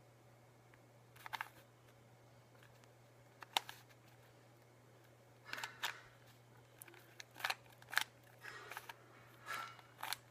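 Plastic 3x3x3 Rubik's cube being scrambled: its layers are twisted with short, sharp clicks and clacks. The clicks come singly at first, then more often from about halfway through.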